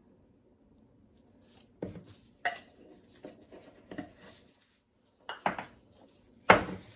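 Kitchen handling sounds of measuring out a spice: a measuring spoon and spice container clinking and knocking. Quiet at first, then a few separate clinks and taps, with the sharpest knock near the end.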